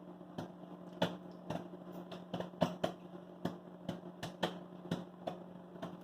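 Microwave popcorn popping inside a running microwave oven: sharp, irregular pops, roughly two a second, over the oven's steady hum, with the popping well under way.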